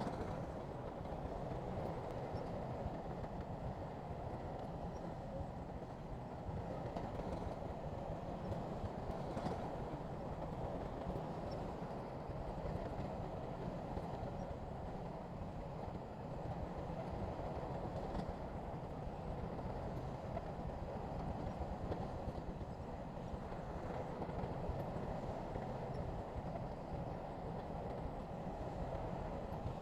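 Bulldozer's diesel engine running steadily, a continuous low rumble.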